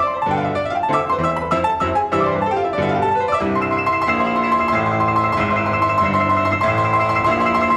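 Grand piano played four-hands: fast runs sweeping up and down, then from about three seconds in, held chords with quick repeated high notes over them.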